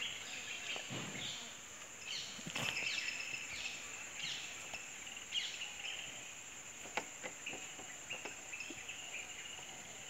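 Rural outdoor ambience: a steady high insect drone, with birds chirping in short calls, thickest a few seconds in, and a few faint clicks.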